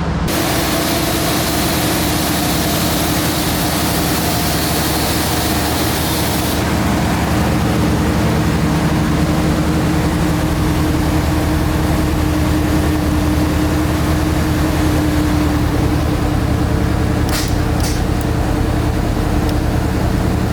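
Diesel V8 engine of a 1993 Chevy dually pickup running steadily with an even, rapid pulsing beat. Two short clicks come near the end.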